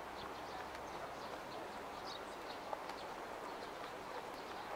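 Outdoor evening ambience: a steady background hum with faint, scattered short high chirps and one brief click past the middle.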